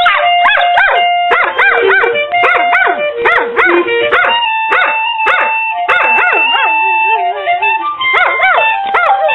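A dog howling and yipping along to music, its voice rising and falling in quick repeated arcs over the music's held notes.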